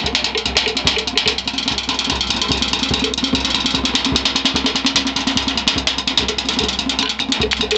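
Fast, continuous hand drumming, a rapid even run of strikes on pitched drums, accompanying a fire dance.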